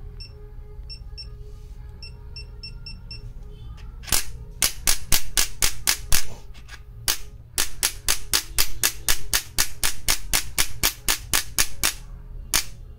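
Electric chiropractic adjusting gun firing a series of sharp mechanical clicks, about three a second, starting about four seconds in: its impulse repetitions at lowered speed. Before the clicks, short electronic beeps from its control buttons as the power is stepped down.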